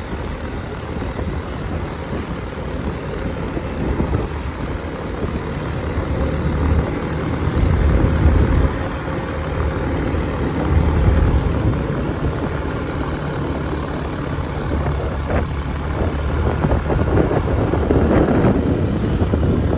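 Heavy truck engines running, a loud steady low rumble, with a few short knocks toward the end.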